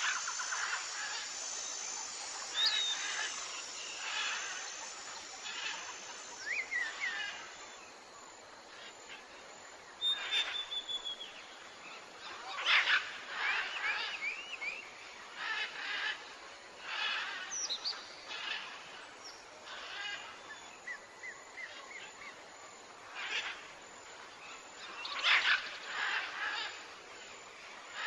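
Birds chirping and calling in short, scattered bursts and trills over a steady background hiss.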